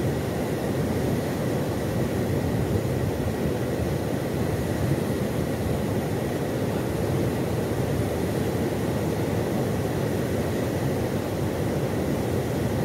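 Steady, even outdoor rumble with no distinct events, with a faint thin high tone running under it.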